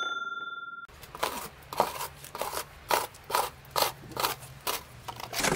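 A bright ringing chime fades out in the first second. Then a snow shovel scrapes and pushes snow across paving stones, with sharp repeated scraping strokes about twice a second.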